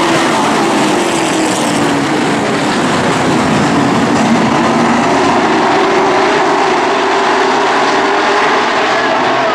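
A full field of late model stock cars racing in a pack, many V8 engines running hard together in one dense, steady drone. The engine pitches slide down and back up as the cars go through the turns and onto the straight.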